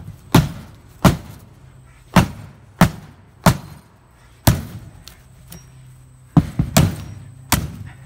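A small tactical hatchet's steel axe blade chopping into the top edge of a varnished plywood sheet: about ten hard, sharp chops at an uneven pace, with a short pause and then a quick run of blows near the end.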